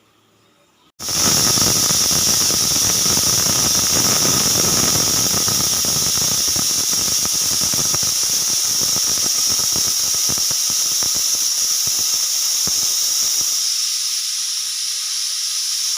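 Pressure cooker whistle blowing off steam while potatoes boil: a sudden, loud, shrill hissing whistle starts about a second in and holds steady for about fifteen seconds, with a rapid sputtering underneath that thins out in the second half, then cuts off.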